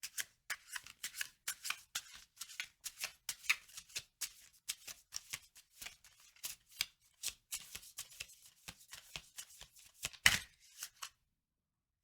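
A deck of oracle cards being shuffled by hand: a steady run of quick card flicks, several a second, with one louder knock about ten seconds in, stopping shortly before the end.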